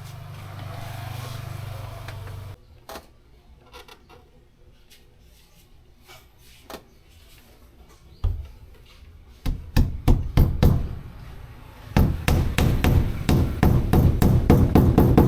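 Hammer blows: a single strike about eight seconds in, a quick run of blows around ten seconds, then a faster, continuous run of blows near the end. A low steady hum is heard for the first two and a half seconds and then cuts off.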